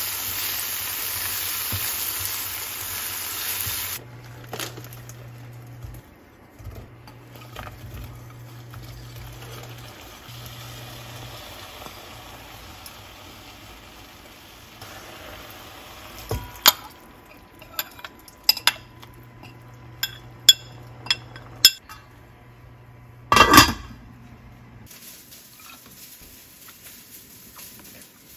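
Braised tofu sizzling in a pan: a loud, steady sizzle for the first few seconds, then a quieter simmer. In the second half come a series of sharp clinks and knocks of utensils against the pan and dishes, the loudest a little before the end.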